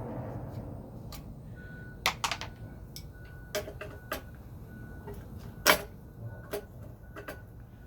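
Scattered sharp clicks and knocks from parts and tools being handled while a portable generator is taken apart, about half a dozen, the loudest a little past the middle.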